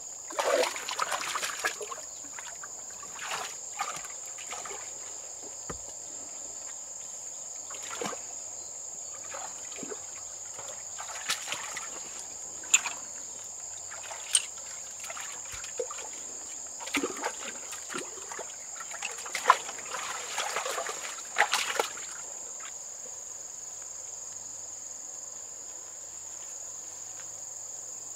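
Shallow water splashing and sloshing in irregular bursts, with a few sharp slaps, over a steady high-pitched buzz.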